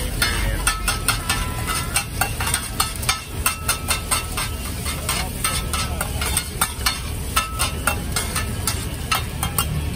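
A metal spatula strikes and scrapes a hot wok irregularly, a couple of times a second, some strikes ringing briefly, as seafood pad thai is stir-fried over a steady sizzle.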